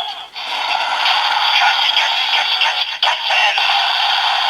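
Grease Blizzard Knuckle toy playing its electronic special-attack sound effects and music through its small built-in speaker, dipping briefly twice.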